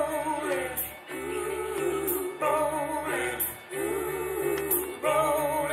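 Music with a singing voice over a steady pulsing bass beat.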